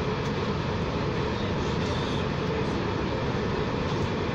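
Steady running noise of a VAL automated rubber-tyred metro train, heard from inside the car as it travels through the tunnel.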